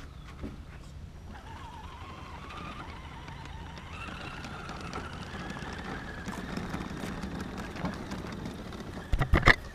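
RC crawler truck's electric motor and gears whining as it tows a boat trailer up a concrete ramp, the pitch rising steadily as it picks up speed. A few loud knocks come near the end.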